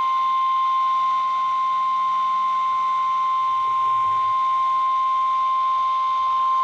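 Emergency Alert System attention signal relayed over FM radio: a single steady tone of about 1 kHz, the 1050 Hz weather alert tone that announces a warning.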